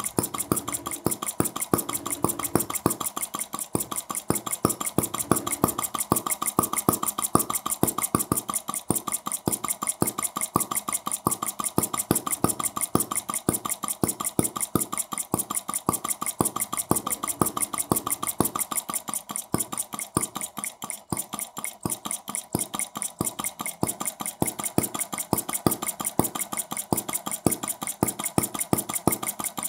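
Scale model of Carl Benz's 1885 single-cylinder engine running steadily: an even beat of sharp metallic clicks, several a second, that goes briefly softer about two-thirds of the way through.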